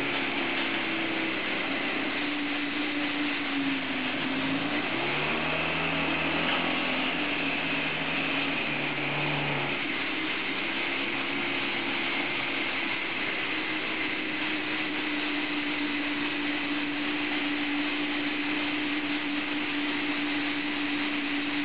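Huge multi-cylinder motorcycle engine running steadily, a continuous mechanical drone with a steady hum. Its pitch dips briefly and recovers about 4 seconds in.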